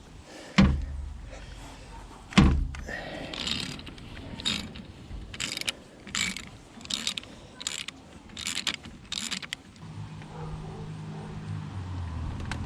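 Ratchet wrench on a spark-plug socket, working a spark plug out of the engine. Two sharp clunks are followed by a run of quick ratcheting strokes, about one every 0.7 seconds. A low steady hum comes in near the end.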